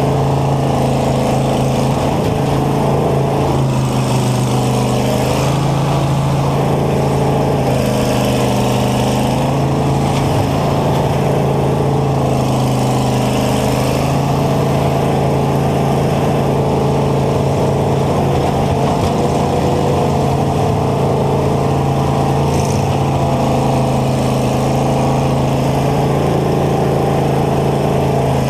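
Combine's engine running loud and steady, heard from the driver's seat in the cab, with a steady low drone and a higher note that rises and falls every few seconds as the machine is driven.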